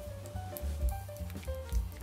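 Background music: a light tune of short melodic notes over a bass line.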